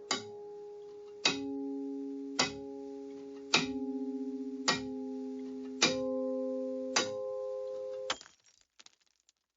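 Background music: slow held chords, a new one struck about once a second, stopping abruptly about eight seconds in.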